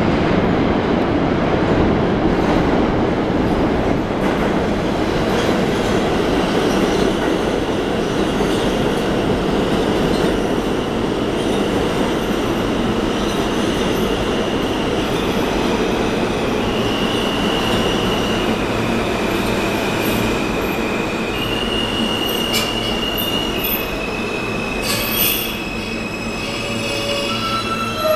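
R160 subway train pulling into the station: a steady heavy rumble of wheels and motors on the rails. From about halfway, as it slows, high whining squeals set in and jump between pitches, with a few sharp clicks near the end as it comes to a stop.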